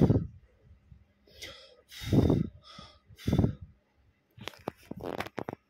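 Three short, loud breath-like puffs of air, then a quick run of light clicks near the end.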